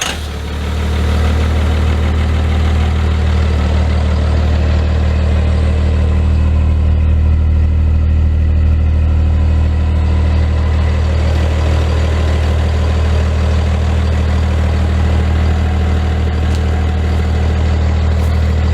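A 2001 Dodge Ram 3500's 5.9-litre Cummins turbo-diesel inline-six on a cold start. It catches right at the start, builds over the first second, and then settles into a steady idle with a deep, even hum.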